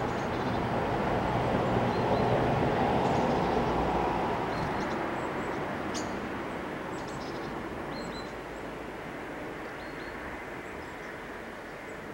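Road traffic: a vehicle passes, swelling to its loudest about two seconds in and then slowly fading, with faint short high calls of small birds now and then.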